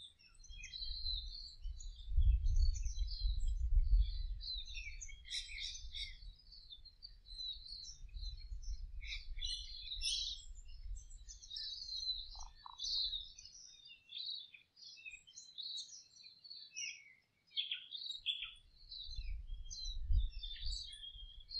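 Birds chirping and twittering, many short calls overlapping, with a low rumble under them that drops away about two-thirds through and returns near the end.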